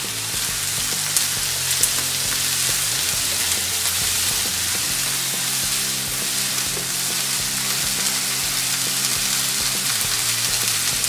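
Diced onion, bell peppers and boiled sweet corn sizzling steadily in butter in a pan, with a couple of clicks from a wooden spatula against the pan in the first two seconds.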